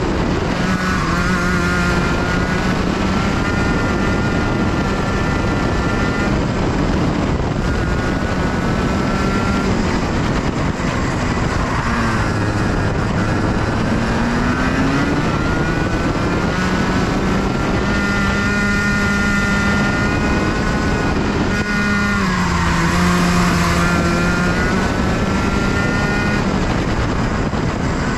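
Racing kart engine running hard at high revs, heard onboard. Its pitch holds steady on the straights and drops, then climbs back up, a few times as the kart slows for corners and accelerates out.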